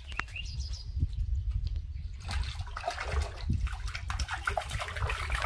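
A hooked tilapia thrashing and splashing at the water surface as it is reeled in, the splashing starting about two seconds in, over a steady low wind rumble on the microphone.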